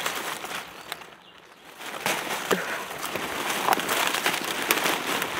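Dry leaf litter and twigs rustling and crackling with many small snaps as the undergrowth is pushed aside and disturbed, going quieter for a moment about a second in.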